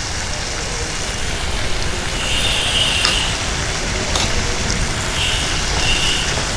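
Boiled peas frying in oil and spice powders in a non-stick kadai: a steady sizzle over a low rumble as the peas' leftover boiling water cooks off. There is a light knock about four seconds in, and wooden-spatula stirring starts near the end.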